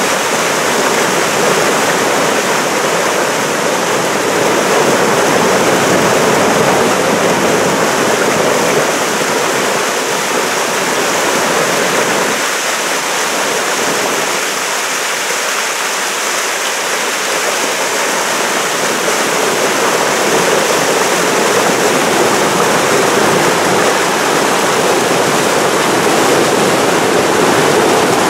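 Eel River floodwater rushing over a low dam and churning below it: a loud, steady rush of whitewater.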